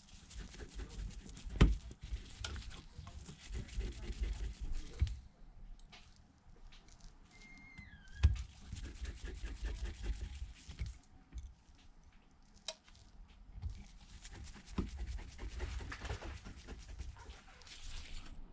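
Handling noise of small-screw work on a phone: a precision screwdriver and tiny screws clicking and rubbing on the plastic back bezel and midframe, with two sharp knocks about 1.5 s and 8 s in.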